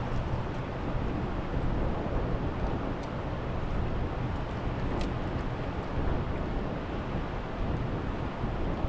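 Steady rushing noise of the fast-flowing Lower Niagara River current, with a couple of faint clicks about three and five seconds in.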